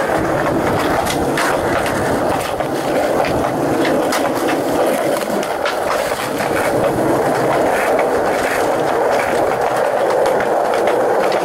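Skateboard wheels rolling steadily over a concrete sidewalk, close up, with sharp clacks as the wheels cross the joints in the pavement.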